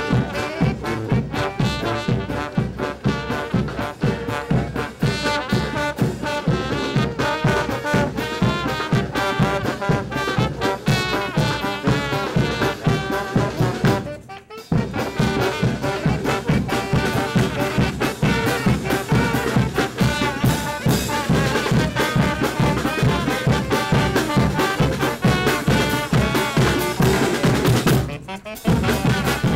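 A brass band playing horns over a steady drum beat. The music breaks off briefly about halfway through and again near the end.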